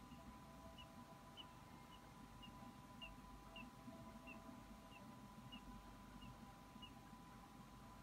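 Near silence, with a bird's faint, short, high chirps repeating evenly about twice a second over a steady faint electronic hum.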